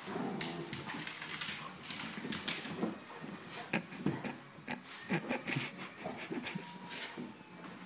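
Basset Hound and Italian Spinone puppy play-fighting: low grunts and growls mixed with scuffling, rustling and sharp clicks as they wrestle on a padded dog bed.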